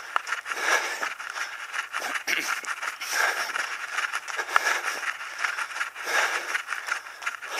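A runner's footsteps on a dirt-and-gravel forest track, picked up by a camera worn by the runner, with rushes of noise swelling about once a second and a few sharp crunches.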